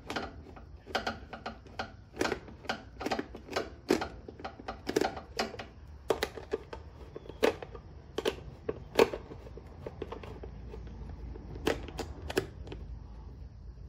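Irregular clicks and taps of a 5/16 nut driver working screws loose from a generator's plastic air cleaner cover, with the tool knocking against the screw heads and housing. The clicking stops near the end.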